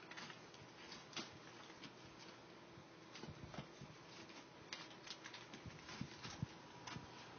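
Three-week-old pitbull puppies suckling from their mother: soft, irregular sucking clicks and little smacks, faint and close.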